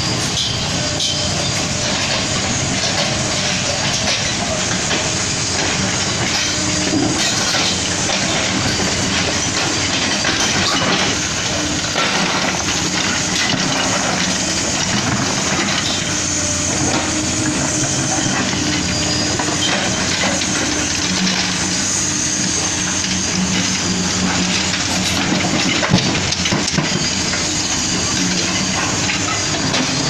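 Kobelco SK75 excavator working: its diesel engine runs under steady load with a hydraulic hum while the bucket scrapes and clanks through rock and soil, digging a trench. One sharper knock near the end.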